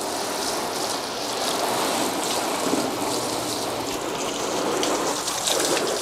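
Garden hose spray gun jetting water onto a caravan's fibreglass back panel, a steady spattering hiss, rinsing off cleaning cream.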